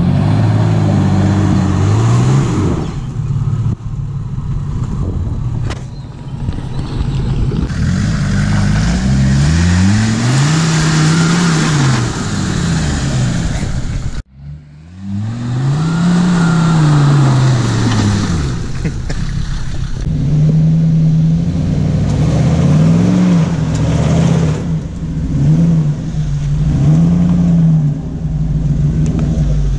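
Off-road 4x4 engines (Jeep Cherokee XJ, Land Rover Defender, Jeep Grand Cherokee ZJ) revving up and falling back again and again as they crawl through deep mud ruts. The sound cuts off abruptly about halfway through and starts again.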